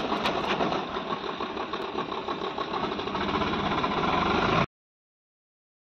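Swaraj 744 FE tractor's three-cylinder diesel engine running under load as it pulls a loaded trolley, growing slightly louder, then the sound cuts off abruptly a little over a second before the end.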